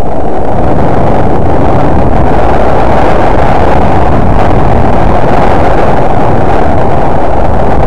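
Loud, steady wind rush buffeting the microphone while snowboarding downhill, with the board sliding over the snow.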